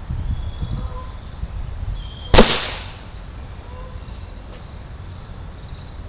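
A single shot from a QB78 .22 CO2 air rifle: one sharp crack about two and a half seconds in that fades within half a second.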